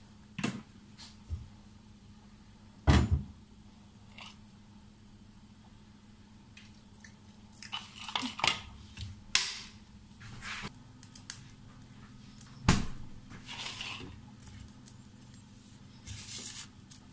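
Kitchen handling sounds during cooking prep: scattered knocks and clinks of utensils, bowl and pan, with two louder thumps about three seconds in and again near thirteen seconds.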